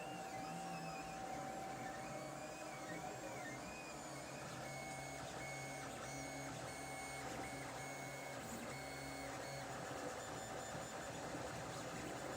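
Lulzbot TAZ 5 3D printer running: its stepper motors whine at changing pitches as the axes move, wavering at first, then holding steady notes in short runs with brief breaks, over a steady fan-like hum.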